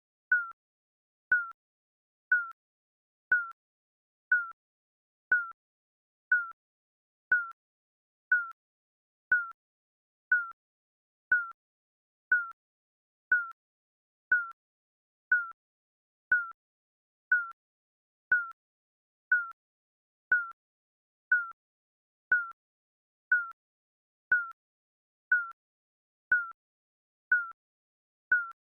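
Digital countdown timer beeping once a second: short beeps at one steady, fairly high pitch, each fading away quickly, with silence between them.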